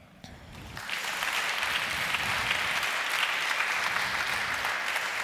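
Audience applauding, the clapping swelling in about a second in and holding steady.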